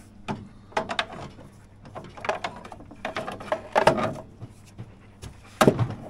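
Irregular metal clanks, knocks and scrapes as parts of a vintage Polaris snowmobile's chassis are pried and worked loose with a long pry bar, in several short clusters, the loudest about four seconds in and near the end.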